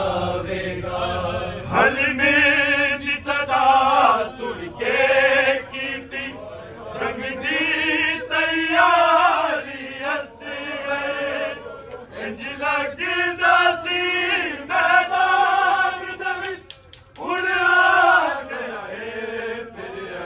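Men reciting a noha, an unaccompanied sung lament for Muharram, in long melodic phrases with short breaths between them.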